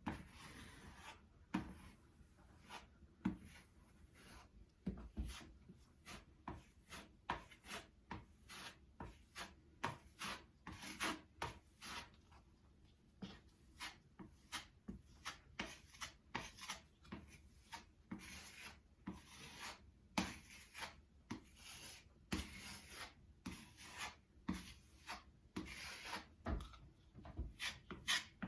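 Metal putty knife spreading spackle over a drywall patch: a series of short scraping strokes, about one to two a second.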